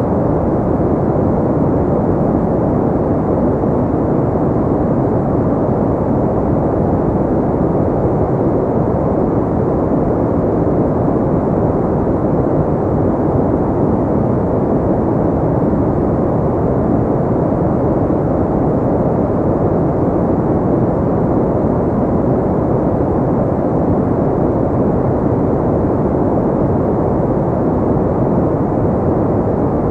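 Steady synthetic pink noise: an even, unchanging deep hiss, weighted toward the low end, with no variation or events.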